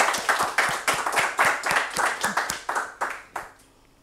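Audience applauding at the end of a talk, the clapping thinning out and dying away about three and a half seconds in.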